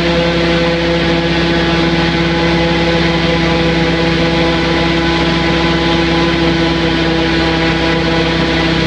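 Airboat's engine and air propeller running steadily with the boat under way: a loud, even drone with a strong, unchanging hum.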